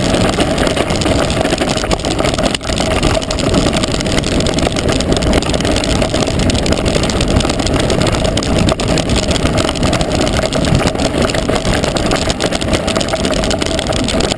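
Wind buffeting the camera's microphone as a mountain bike speeds downhill on a gravel track, with the tyres rumbling and the bike rattling over stones in a steady run of small clicks.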